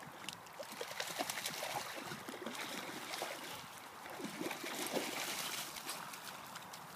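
Dogs wading and splashing through a shallow muddy pond, the water sloshing and splashing irregularly, busiest about a second in and again around five seconds in.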